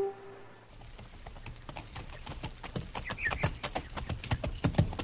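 Horses' hooves clip-clopping at a walk, a radio-drama sound effect that fades in and grows steadily louder. It starts just after the last sustained note of a music bridge dies away, about half a second in.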